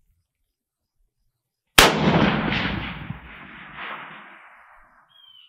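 A single rifle shot from an 1898 Krag–Jørgensen rifle in .30-40 Krag: one sharp report just under two seconds in, with a long echoing tail that fades over about three seconds. About two seconds after the shot comes a faint, small sound: the bullet striking the steel target at 500 yards.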